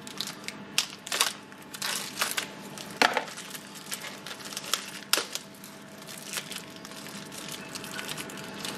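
Irregular sharp metallic clicks and scrapes from brake parts being handled and fitted on a brake caliper carrier held in a bench vice.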